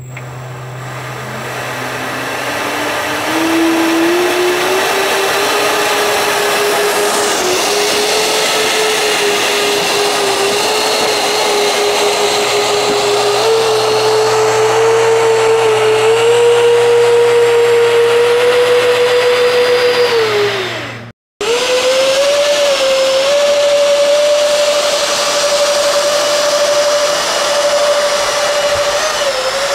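Twin 50 mm electric ducted fans of a scratch-built RC business-jet model spinning up to a loud, steady whine that rises in pitch over the first few seconds and holds for a long run-up, then winds down about twenty seconds in. After a short break they run steady again at a slightly higher pitch. The builder judges the fans starved of air by intakes that are too small.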